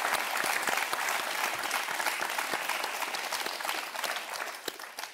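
Studio audience applauding, a dense patter of claps that dies away near the end.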